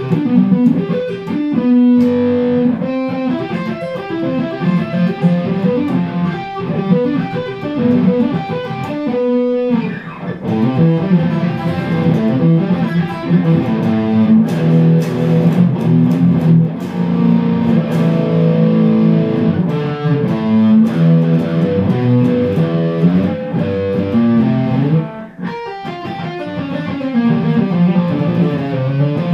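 Hardluck Kings Spider electric guitar with its original stock pickups, played loud through an amplifier in fast lead runs and riffs. There are a few brief breaks between phrases.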